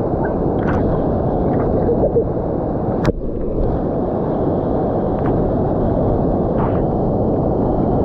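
Waterfall: a steady rush of falling water, with one sharp click about three seconds in.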